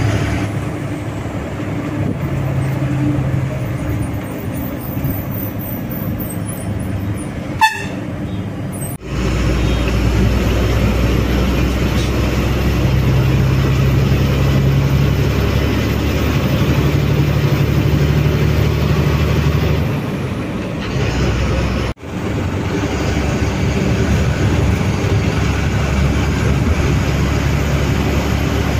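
Ashok Leyland BS-6 diesel bus running along the road: steady engine drone and road noise. The sound changes abruptly about nine and twenty-two seconds in, with a brief sharp sound just before the first change.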